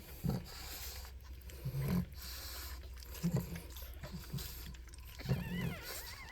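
Week-old pug puppies grunting and squeaking: scattered short low grunts, then a thin, wavering squeal near the end.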